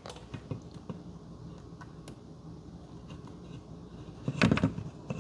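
Faint scattered clicks and rustling of plastic wire-harness connectors on an electronic deadbolt being handled and pushed together, with one louder short handling sound about four and a half seconds in.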